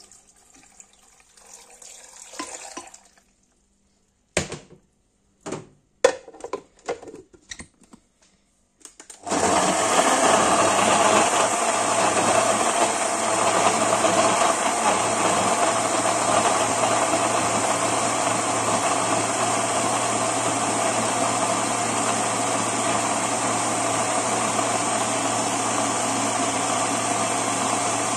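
Several sharp knocks and clicks, then about nine seconds in a SilentMixx countertop blender's motor starts and runs steadily at full speed, blending tomatoes into juice.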